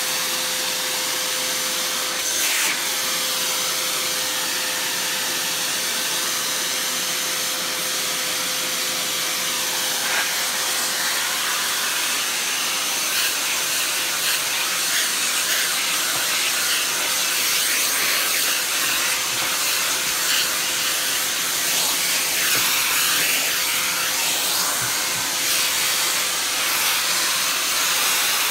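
Vacuum cleaner running steadily with a constant motor whine, used to suck the dust off a dusty old machine, with a few faint knocks.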